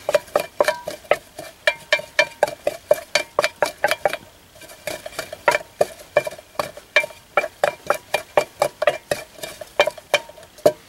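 A carved wooden stick grinding and pounding mint leaves in a metal canteen cup: quick knocks, about three or four a second, each ringing briefly off the metal, with a short pause a little before the middle.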